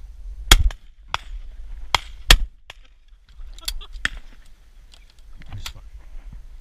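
Over-and-under shotgun fired at passing ducks: two loud shots about two seconds apart, with a fainter bang just before the second. A few sharp metallic clicks follow as the gun is opened and reloaded.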